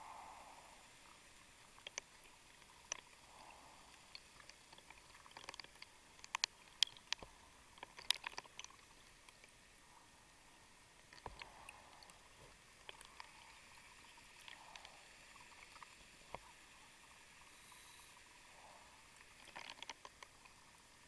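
Faint, muffled underwater sound heard through a camera housing: scattered sharp clicks and ticks over a low hiss, bunched about five to nine seconds in and again near the end.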